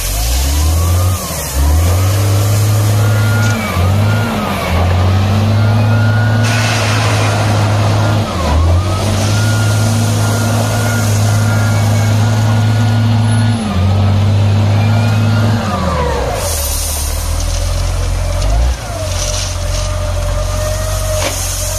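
A wheel loader's diesel engine revs up hard and drops back several times, holding high revs for long stretches while it digs into and lifts loads of crushed stone, then settles lower near the end. Stone pours and scrapes as the bucket dumps into the truck and digs into the pile.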